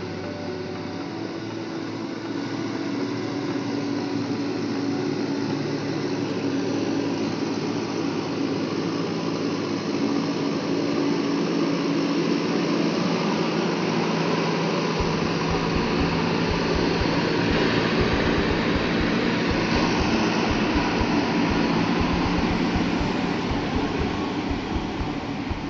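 Heavy diesel engine of an earth-moving machine working under load, a steady running note that grows louder over the first several seconds. A deep low rumble joins it about halfway through.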